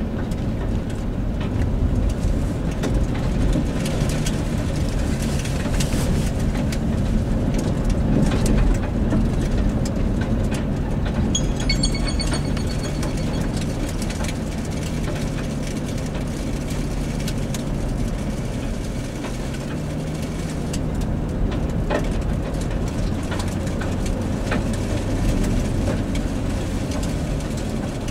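Vehicle driving, heard from inside the cabin: a steady low rumble of engine and road noise.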